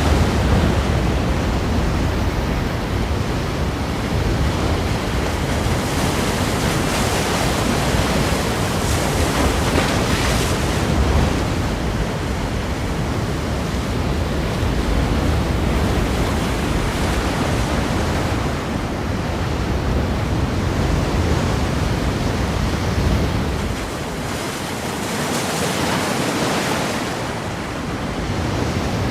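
Ocean waves breaking against rocks: a continuous wash of surf that swells and ebbs, its low rumble easing for a few seconds near the end.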